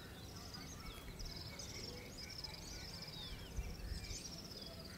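Faint outdoor ambience: scattered high chirps and twittering of small birds over a low, steady background rumble.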